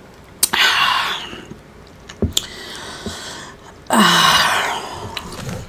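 Two long breathy exhales, 'ahh'-like sighs from a woman, one about half a second in and one about four seconds in; the second begins with a short voiced 'ahh'. Between them a plastic cup of iced drink is set down with a light knock and a couple of clicks.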